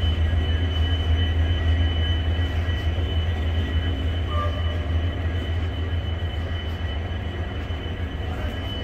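Palace on Wheels luxury train pulling slowly out past the platform: a steady low rumble with a constant high whine over it.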